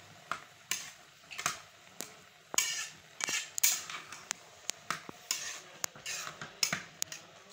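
A spoon clinking and scraping against a metal cooking pot while rice is stirred together with jaggery syrup and dry fruit: irregular sharp knocks about once or twice a second, with a few short scrapes.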